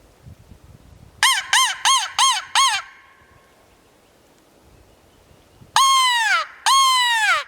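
Crow caws, loud and close: a quick run of five short, falling caws, then after a pause two long, drawn-out caws, each sliding down in pitch.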